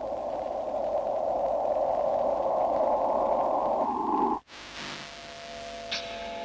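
Electronic film-soundtrack noise: a band of static-like rushing that swells louder, then cuts off abruptly about four and a half seconds in. Quiet, steady electronic tones with a thin hiss follow it.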